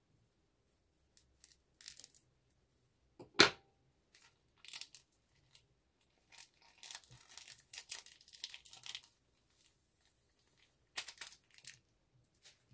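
Plastic piping bag crinkling and rustling in short bouts as it is squeezed and shaken over a glass dish. There is one sharp knock about three and a half seconds in.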